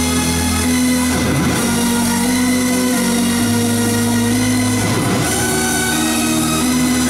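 Loud trance music over an arena sound system: long held synth chords that change every second or two over a steady bass line.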